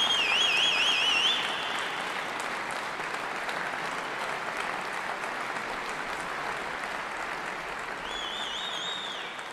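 Audience applauding, with a shrill warbling whistle at the start and another near the end; the clapping slowly thins out.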